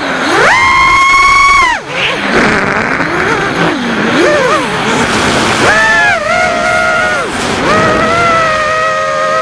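FPV quadcopter's brushless motors whining, the pitch jumping up and falling away with each throttle punch and chop. It holds a high steady tone for over a second near the start, wavers through the middle, spikes again about six seconds in, and settles into a steady whine near the end.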